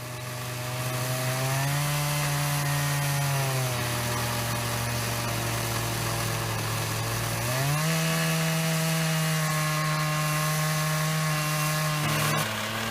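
Chainsaw running under load in an Alaskan chainsaw mill, ripping lengthwise through a silver maple log. The engine note steps up and drops back twice.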